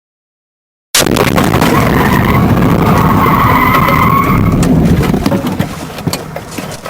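Vehicle collision: the sound cuts in about a second in with a loud crash, followed by a few seconds of skidding with a squealing tone that fades toward the end.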